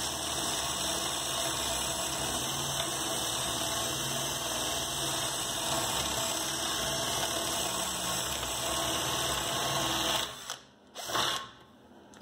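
Cordless drill running steadily with a small spade bit boring through a wooden board, handling it with no problem. The motor stops about ten seconds in, followed by a couple of short noises as the bit is drawn back out.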